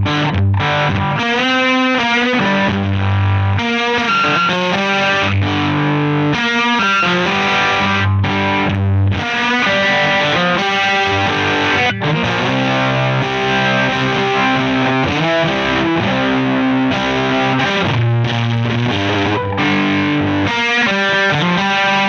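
Distorted electric guitar playing chords and riffs through a TC Electronic Mimiq Mini Doubler pedal, with the doubler switched on to give a thickened, multi-tracked guitar tone.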